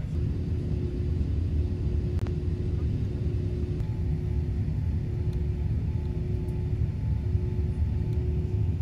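Jet airliner engine noise heard from inside the cabin: a steady low rumble with a steady hum over it, dipping briefly about two seconds in, with a fainter higher tone joining about four seconds in as the plane climbs.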